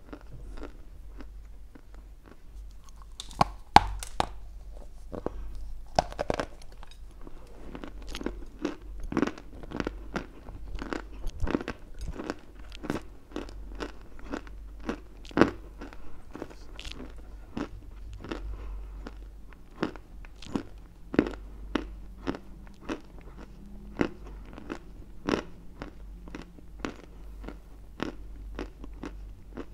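Close-miked biting and chewing of dry white Turkestan edible clay chunks. It is a steady, irregular run of sharp crunches, with a few louder bites standing out.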